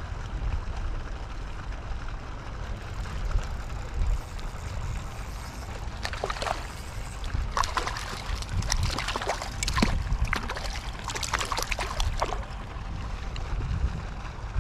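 Steady low wind rumble on the microphone. From the middle until near the end it is joined by several seconds of crackling water splashing and sloshing.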